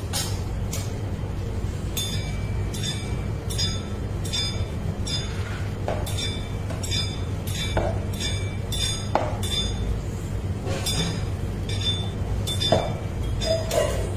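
Light metallic clinks, about two a second, over a steady low hum.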